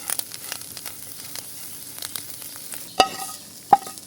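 Food sizzling in a metal pan as it is stirred, with small scrapes and ticks throughout. About three seconds in, the utensil clanks sharply against the pan twice, each strike leaving a brief metallic ring.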